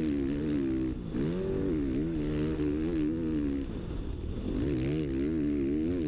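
Kawasaki KX450F's single-cylinder four-stroke engine revving on and off the throttle, its pitch rising and falling constantly, sagging briefly about a second in and again around four seconds in.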